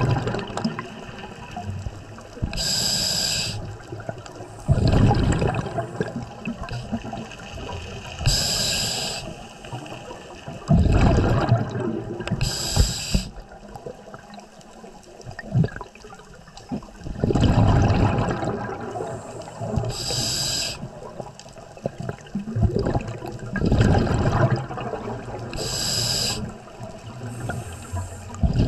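A scuba diver breathing through a regulator underwater. Each breath is a short hiss as air is drawn through the demand valve, then a longer, louder gurgle of exhaled bubbles. The cycle repeats about every five to six seconds.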